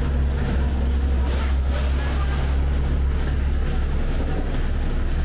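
Airport apron shuttle bus running, a steady low rumble heard from inside the passenger cabin; a higher hum in its sound eases off about two-thirds of the way through.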